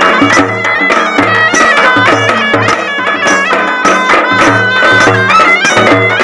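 Traditional folk band music: a reedy wind instrument plays a melody over a steady drone, while a large barrel drum beaten with a stick and a small frame drum beaten with a stick keep a dense rhythm.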